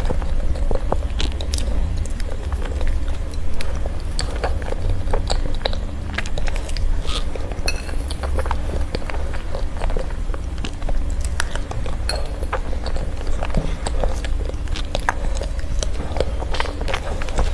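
Utensils clicking and tapping on dishes, many small scattered clinks over a steady low hum.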